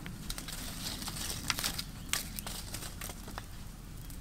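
Wood cooking fire crackling under a wire grill rack, with irregular sharp ticks and pops.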